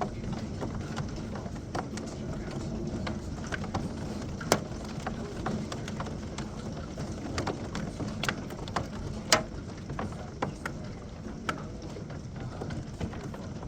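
Hailstorm: a steady rush of falling hail with scattered sharp ticks of hailstones striking hard surfaces, a few louder hits about four and a half and nine seconds in.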